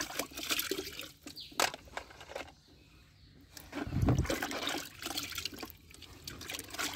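Muddy water sloshing and splashing in a plastic tub as small plastic toy cars are dunked and swished in it by hand, with a low thump about four seconds in.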